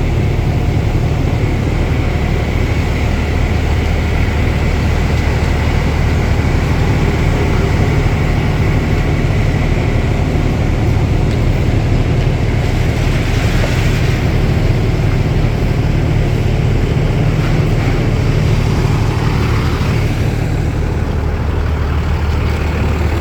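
Fire truck's diesel engine running with a steady low drone, heard from inside the cab. About halfway through, a brief hiss lasting a couple of seconds rises above it.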